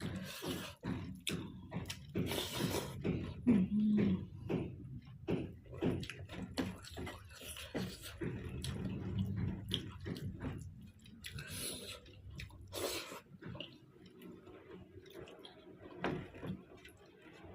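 Close-up eating sounds: wet chewing and lip smacks of a person eating nettle (sisno) saag with maize rice by hand, with a short low hum about three and a half seconds in.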